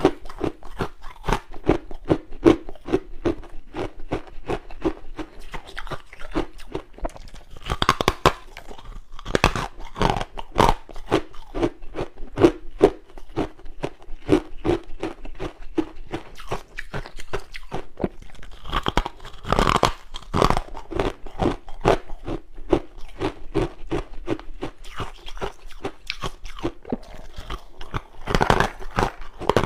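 Freezer frost being chewed close to the microphone: a fast, steady series of crunches, with louder spells of biting four times.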